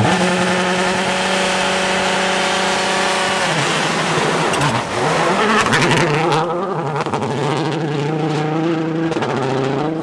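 Mitsubishi Lancer rally car's turbocharged four-cylinder engine running at steady held revs while the car is stopped. About three and a half seconds in it revs up and down as the car pulls away. Then a rally car accelerates hard along a gravel stage.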